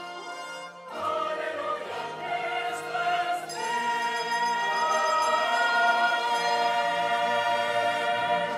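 A mixed choir singing with a handbell choir and a band. The music swells and settles into a long, loud held chord near the end of the piece.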